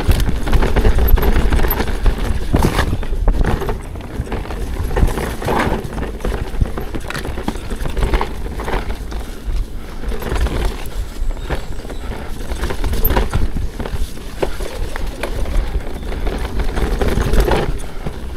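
ProPain Ekano 2 mountain bike riding down a rocky trail: tyres knocking over rocks and the bike clattering in irregular, closely spaced knocks over a steady low rumble of ground and wind noise.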